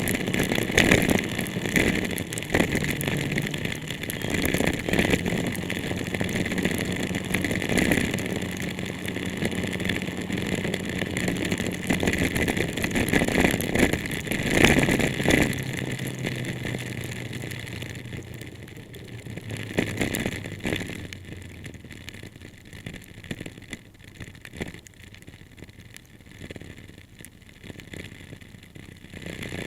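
Car driving in heavy rain: a steady hiss of rain and tyre spray over an engine hum that steps down in pitch a couple of times, the whole growing quieter in the second half.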